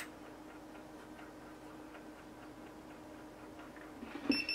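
Quiet room with a steady faint low hum and a few light ticks. Near the end comes a click and a short high beep from a handheld infrared thermometer as it is triggered to take a temperature reading.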